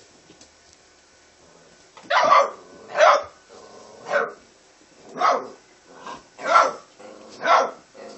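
Red-nose American pit bull terrier puppies barking: about six barks roughly a second apart, starting about two seconds in.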